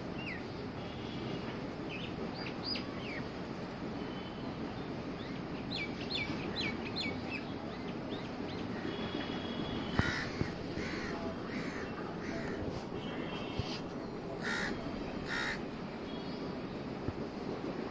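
Crows cawing, a run of about eight short harsh calls from about ten seconds in. Before that, small birds chirp in thin whistled notes, all over a steady low background noise.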